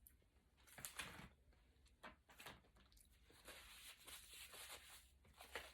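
Near silence with faint handling sounds: a few soft brief rustles and knocks, the loudest about a second in, as dishes and food containers are moved on a table.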